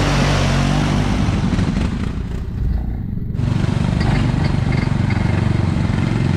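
ATV engines running as the quads churn through mud and water, with a hiss of spray over the engine at first. About two and a half seconds in the hiss drops out briefly, then a steady low engine drone runs on.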